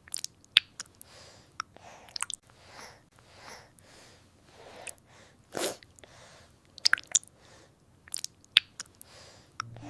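Newborn baby's mouth and breathing sounds: soft repeated breaths with scattered wet clicks and smacks, and one louder noisy burst about five and a half seconds in.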